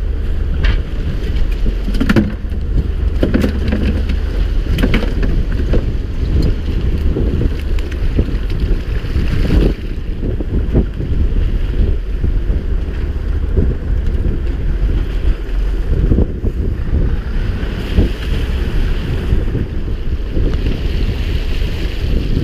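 Wind buffeting the microphone aboard a small fishing boat at sea, with waves washing against the hull and a few scattered knocks on board.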